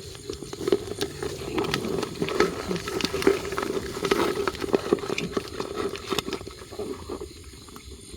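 Dry leaves and plant debris rustling and crackling as they are moved, in irregular sharp crackles that thin out near the end, over a steady low hum.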